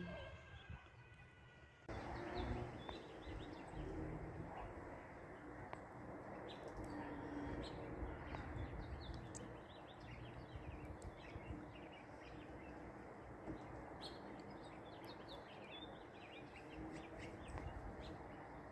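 Small birds chirping on and off over a steady outdoor background hiss, which gets louder about two seconds in.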